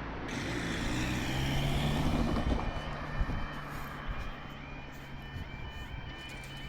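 A road vehicle's engine running at the crossing. About four seconds in, the level crossing's warbling yodel alarm starts, repeating rapidly, as the crossing activates for an approaching train.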